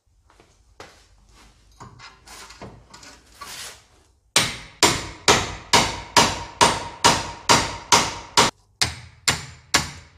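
Hammer blows on a steel forked ball-joint splitter driven under a car's front suspension ball joint, about two sharp ringing metal strikes a second, with a short break just past the middle. For the first few seconds there are only quieter knocks and tool handling.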